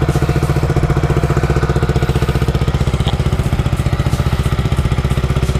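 A Yamaha MT-15's single-cylinder engine idles steadily through a replica Akrapovič full-system exhaust with its silencer insert fitted. The exhaust note is not very loud, a bit like the stock pipe.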